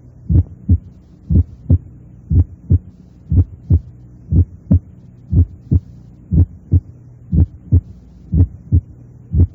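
Heart sounds in a steady lub-dub, about one beat a second, with an atrial (fourth) heart sound set 0.05 s before the first heart sound, so close that it nearly merges into it and is much less evident. A faint steady hum lies beneath.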